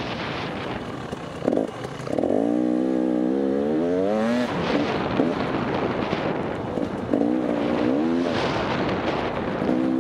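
KTM 300 EXC TPI two-stroke single-cylinder enduro engine revving up under acceleration several times: a short rev about a second and a half in, a long rising rev from about two seconds to four and a half, and two more near the end, all over a steady rushing noise.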